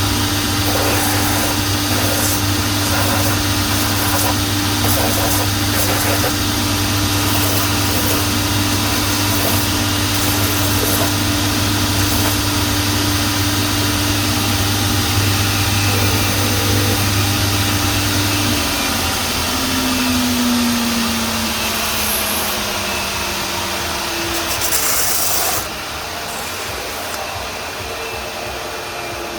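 Shoe repair finishing machine running while the sole and welt edge are ground smooth, with scraping contact noise over a steady motor hum. About 18 seconds in, the motor is switched off and its pitch falls as it spins down. A steady blowing noise carries on at a lower level, dropping a little more about 26 seconds in.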